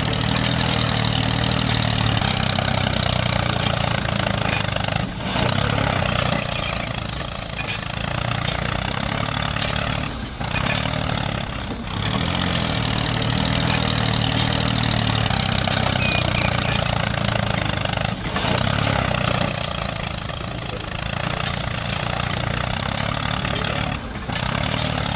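Tractor engine running steadily with a low, even throb, its level dipping briefly a few times.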